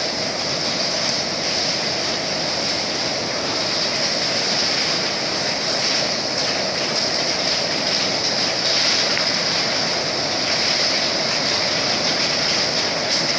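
Electric welding arc burning steadily with a continuous crackling hiss.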